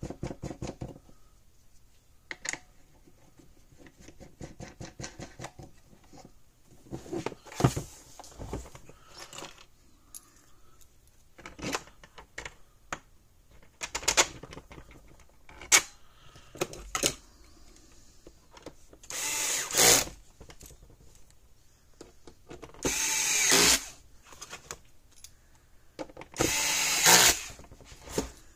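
Clicks and knocks of handling a plastic fence-energizer case on a workbench, then a small cordless electric screwdriver running three times for about a second each, driving screws into the back of the case.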